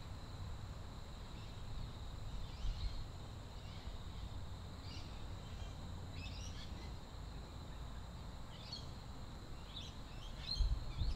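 Outdoor evening ambience: scattered short bird chirps over a steady high insect drone and a low rumble.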